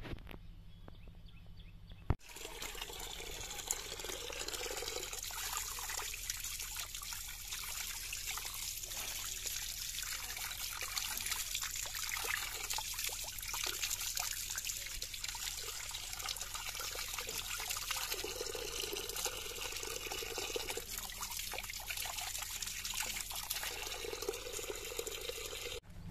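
Running water pouring over a freshly dug crab held in the hand and splashing onto the wet ground as the mud is rinsed off. It starts suddenly about two seconds in and keeps up steadily.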